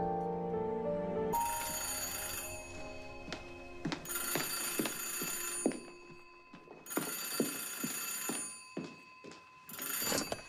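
Old-fashioned telephone bell ringing four times, each ring about a second and a half long with short pauses between, the last ring cut short as the receiver is lifted. A piece of music ends just as the ringing begins.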